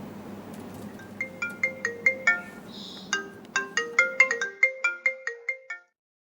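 A short, fast melody of bright, separate notes in the style of a phone ringtone, over a low hum. It cuts off abruptly about a second before the end.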